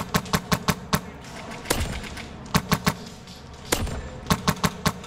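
An airsoft M4 rifle firing quick single shots in short strings, three to five shots each with about a fifth of a second between them.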